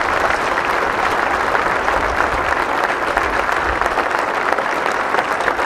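Outdoor crowd applauding: many hands clapping in a steady, dense patter.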